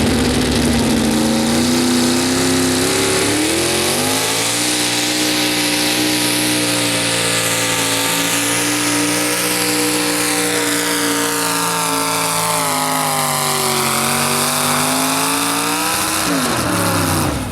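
A pulling truck's engine running at high revs under heavy load. Its pitch climbs a few seconds in and holds high, sags and recovers, then drops off sharply near the end as the throttle comes off.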